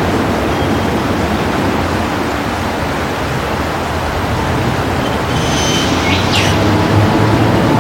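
A steady, loud rumbling noise, with a few short, high bird chirps about five to six and a half seconds in.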